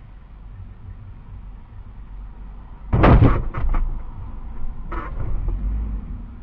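A van's body striking the car at low speed: a sudden loud bang with a few sharp knocks in quick succession about three seconds in, then a second, smaller knock about two seconds later, over a low engine rumble.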